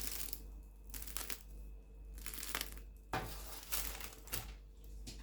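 Crinkling, rustling noises in several short bursts, like paper or a crisp surface being handled or broken.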